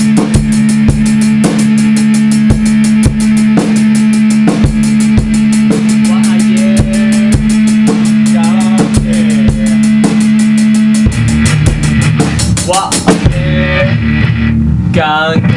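Home-produced metal track: a drum kit with a steady kick about twice a second and rapid cymbal hits over a held low note. About eleven seconds in a heavier low bass part takes over, and the cymbals drop out near the end.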